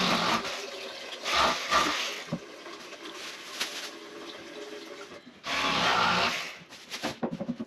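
Thin plastic shopping bag crinkling and rustling in three loud bursts as it is opened and handled, with a few sharp clicks near the end.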